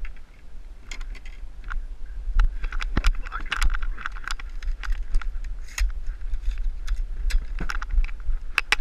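Knocks, clicks and clatter of gear in a fishing boat as the landing net is pulled out of a floor storage locker, over a steady low rumble.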